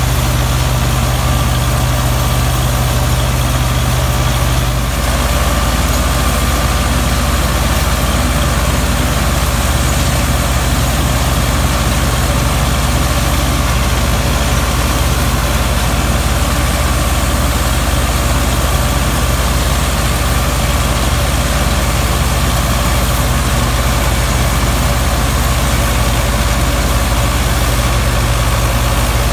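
Belarus 510 tractor's four-cylinder diesel running steadily under load, driving a PTO-powered wheat straw chopper and blower. The sound shifts slightly about five seconds in.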